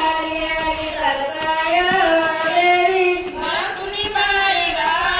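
Women singing a traditional Marathi chundalni work song in high voices, with long drawn-out notes that bend up and down, and a few soft taps underneath.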